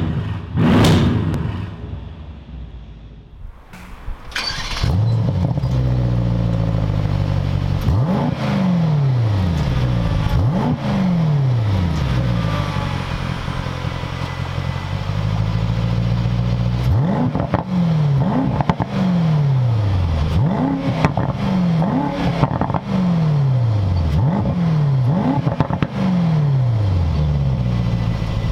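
Mercedes-AMG GT 63 S 4-door's twin-turbo V8 heard through a mariani flap exhaust system at the tailpipes. After a short loud burst at the very start, the engine comes in suddenly about four seconds in. It is then revved in repeated short blips, each jump in pitch dropping back in a falling glide toward idle, with sharp cracks from the exhaust.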